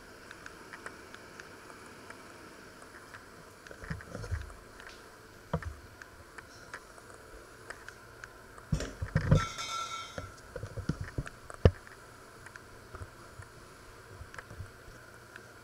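Scattered clicks and knocks of kitchen objects being handled over a faint steady hum, with a louder clatter and a brief metallic ring about nine seconds in and a single sharp knock a couple of seconds later.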